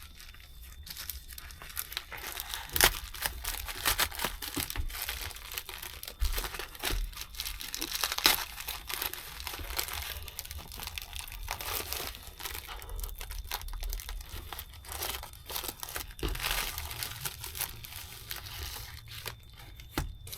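A parcel's packaging being torn open and crumpled by hand, with irregular rustling, tearing and crinkling and many sharp crackles.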